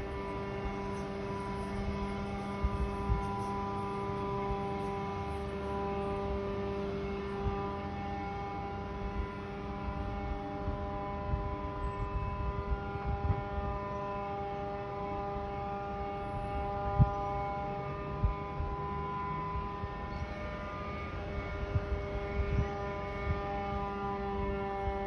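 Steady droning hum made of several held tones at once, with a low rumble and a few short knocks underneath.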